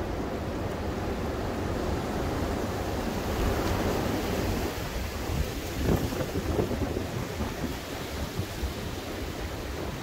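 Strong gusting wind rushing through tall pines and bare trees and buffeting the microphone, swelling around the middle, with a sharp louder gust about six seconds in.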